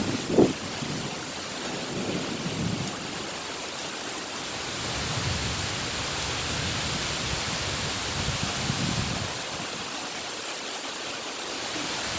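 Steady heavy rain, with low rumbles that swell and fade every few seconds and one short loud thump about half a second in.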